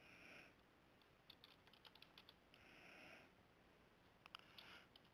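Faint computer keyboard typing: short runs of key clicks.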